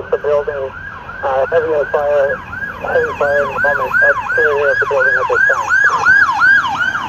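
Electronic siren on a responding fire apparatus in yelp mode, sweeping up and down about three times a second. It grows louder as it approaches, peaking about six seconds in.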